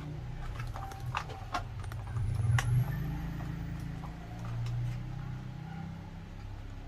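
A few light clicks and taps from handling wires and a light switch being pushed into an electrical wall box, over a steady low rumble.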